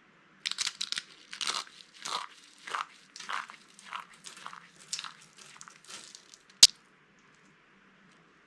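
Dry bar soap crunching, a dozen or so separate crunches one after another, followed by a single sharp click, the loudest sound, near the end.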